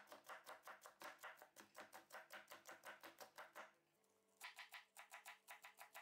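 Rapid, even chopping of peppers with a long knife on a plastic cutting board, about five to six strokes a second, pausing briefly a little past halfway. Quiet guitar-like background music plays underneath.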